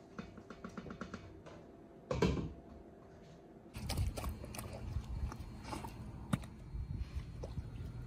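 A metal pot lid and plastic plate clattering over a cooking pot, then, from a little under four seconds in, a dog taking a boiled beef shank bone and licking and gnawing at it, with sharp clicks of teeth on bone.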